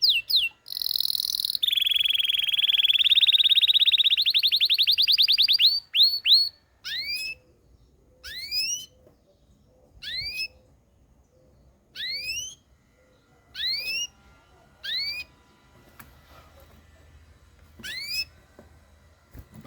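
Belgian canary singing: a fast rolling trill of rising notes for the first few seconds, then single upward-sweeping whistled notes spaced a second or more apart.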